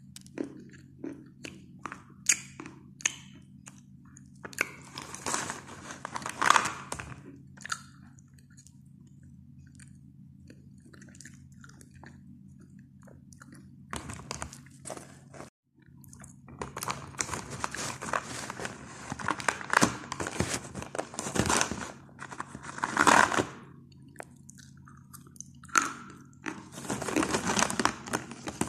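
Close-miked crunching and chewing of pieces of coloured chalk, in bursts of sharp crackling with quieter pauses between and a brief cut to silence about halfway through. A steady low hum sits underneath.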